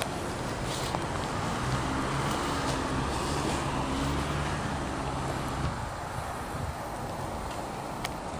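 Low, steady engine hum of a passing motor vehicle over outdoor background noise, fading out about six seconds in.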